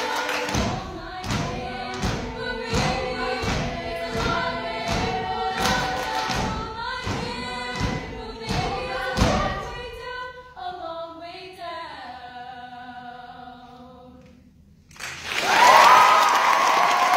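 Girls' a cappella choir singing over a steady beat of claps and thumps, about one every 0.7 seconds. About ten seconds in the beat stops and a held final chord fades away. Audience applause breaks out near the end.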